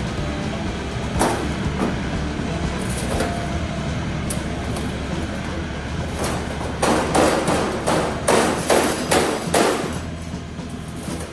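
A mini excavator runs while its bucket presses a bent metal G-scale model suspension bridge flat against a steel plate. From about seven seconds in, the metal frame gives a rapid run of sharp clicks and knocks for about three seconds as it is pushed down.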